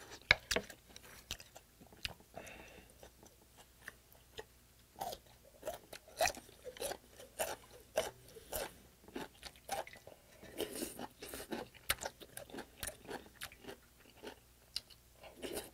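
A person eating close to the microphone: crunchy chewing in quick runs of about three bites a second, broken by a few noisy slurps of broth from a spoon.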